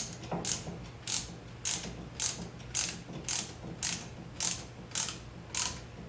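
Ratcheting brake caliper piston tool clicking at an even pace, about two clicks a second, as it screws the rear caliper piston back into its bore.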